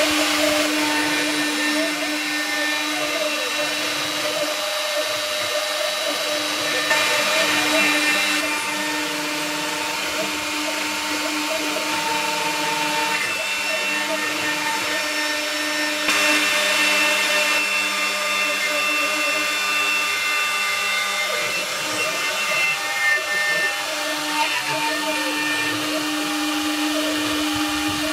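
CNC router spindle running with a steady whine while a ball-nose end mill cuts finishing passes into glued-up softwood stock. Tones that rise and fall recur throughout, and the cutting noise swells a few times.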